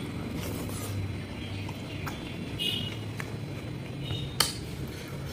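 Close-up eating sounds: a man chewing a handful of rice with his mouth near the microphone, with small wet mouth noises and fingers working food on a plate, and one sharp click about four seconds in.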